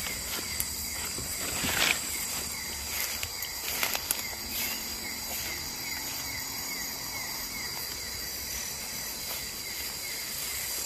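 Night chorus of crickets and other insects: a steady high-pitched trilling, with a quick, evenly repeated short chirp beneath it. Occasional clicks and rustles of brush as someone walks through the undergrowth, the loudest about two seconds in.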